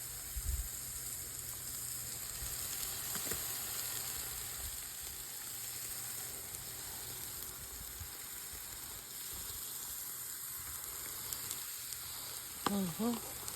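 Slider burger patties sizzling steadily on a hot grill.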